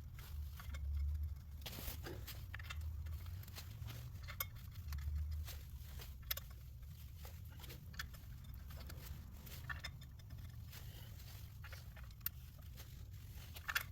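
Faint scattered metal clicks and taps as pressure-plate bolts are handled and started into the flywheel by hand, over a low steady hum.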